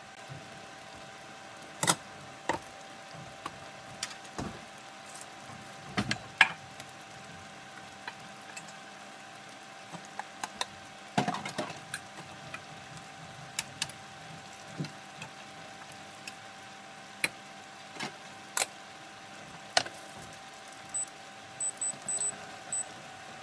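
Scattered clinks and knocks of a steel saucepan, its lid and utensils being handled beside an induction cooktop, over a steady electrical hum. There is a quick run of small clicks near the end.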